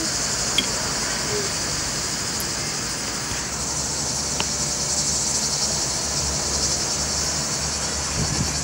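Chorus of cicadas: a steady high-pitched shrill with a fast pulsing to it. A light click of the metal fork on the plate comes about half a second in and another around four seconds.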